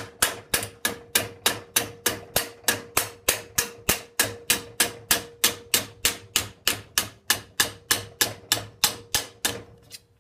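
Hammer blows on 22-gauge annealed stainless steel sheet over the heel of a metal stake: a fast, even run of sharp metallic strikes, about three a second, with a faint steady ring beneath them, stopping just before the end. The blows are knocking an edge crimp that had come undone back into line.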